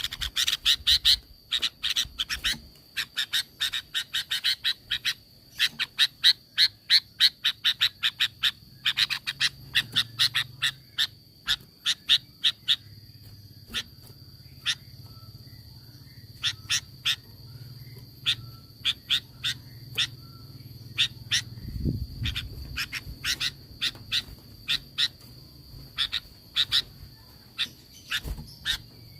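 Animal calls: runs of sharp, rapid clicks, several a second, coming in bursts with short gaps. A steady high whine runs behind them, and faint short whistles sit underneath.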